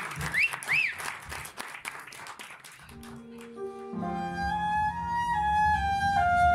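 Audience applause dying away, with two short whistles near the start. Held keyboard chords come in about three seconds in, and a flute melody of long held notes enters over them about a second later.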